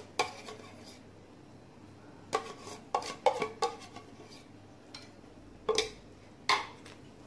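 Metal spoon clinking and scraping against a tin of ghee and the rim of an aluminium cooking pot as spoonfuls of ghee are scooped out onto cooked rice. Sharp separate clinks: a cluster of four a little after two seconds in, and two more near the end.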